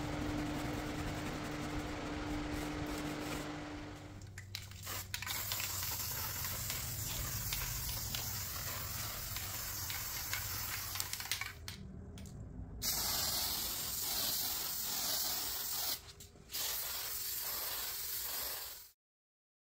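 Aerosol spray can hissing in long bursts with short breaks, spraying a finish onto the wood. For the first few seconds only a steady low hum is heard, and the sound cuts off suddenly near the end.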